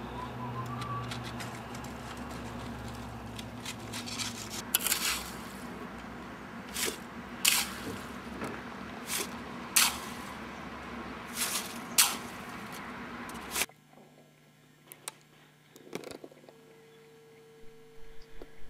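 Wet mortar being scraped and worked with a hand tool: a string of short, sharp scrapes and squelches, about eight of them, irregularly spaced, over a steady low hum. About fourteen seconds in, the sound cuts off to near silence with only a faint steady hum.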